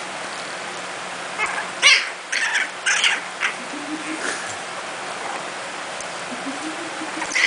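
Boston terrier puppy giving short, high yips and squeals while an adult dog plays with it, several in quick succession about two to three seconds in, then a few fainter ones.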